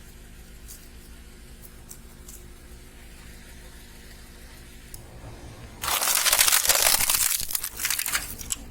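Car tyre rolling over and crushing crunchy objects: a loud crackling, crunching burst of about two and a half seconds starting about six seconds in, with a few sharp cracks as it tails off. Before it there is only a low steady hum.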